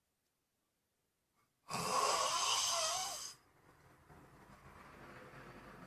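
A person snoring while asleep. After more than a second of near silence comes one loud snore of about a second and a half, then a quieter, longer breath, and the next loud snore begins at the very end.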